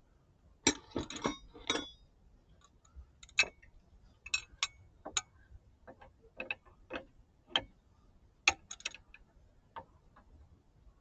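A wrench clicking and clinking in short, irregular strokes as an A/C line fitting nut is snugged down on its new O-ring. A quick cluster of metallic clinks comes about a second in, then single clicks follow every half second or so.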